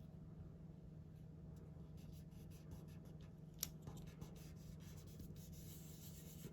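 Faint handling of paper and a sticker on a planner page: light rustling and small scattered ticks, with one sharper tick about three and a half seconds in.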